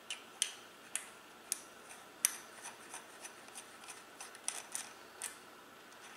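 Light, sharp metallic clicks from fingers threading and snugging the cone and locknut on the axle of a Shimano coaster brake hub, about a dozen in all, spaced out at first and coming quicker after about two seconds.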